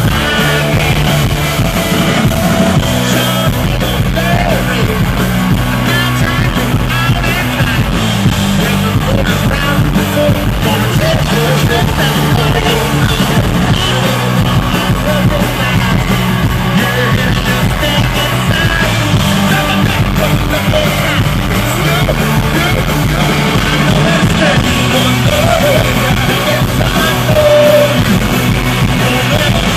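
Live rock band playing loud: driving bass and drums, electric guitar and a lead vocal sung and shouted over them, recorded from within the crowd.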